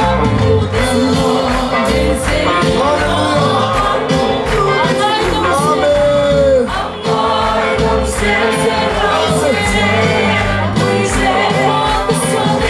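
A group of people singing a gospel song together over a steady drum beat.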